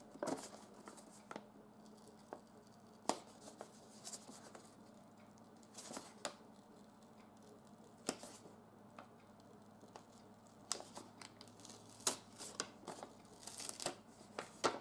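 Faint, scattered rustles, small clicks and brief tearing sounds of a paper-wrapped cardboard box being handled and picked open.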